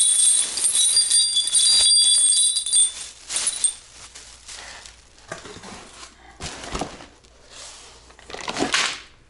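A bright, ringing jingle for about the first three seconds. After it come scattered clinks, knocks and rustles from bolts, cardboard and a plastic bag of aluminium spacer pucks being handled on a concrete floor, loudest near the end.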